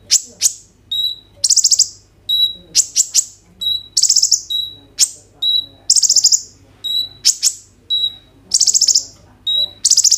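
Male van Hasselt's sunbird (kolibri ninja) singing over and over: high, thin phrases of a short whistled note, a fast buzzy trill and a few sharp high notes, repeated about every two seconds.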